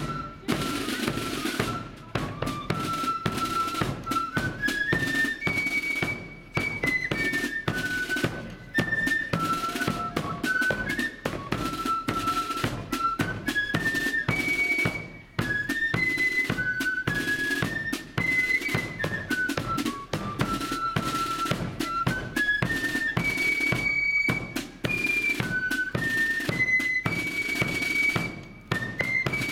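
Marching flute band playing a tune: the flutes carry a high melody that steps up and down, over rapid, dense snare drumming and a bass drum beat.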